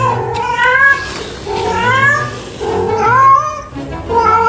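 Domestic cat meowing loudly and insistently, about four drawn-out meows in a row, each rising in pitch. It is demanding more food after just eating.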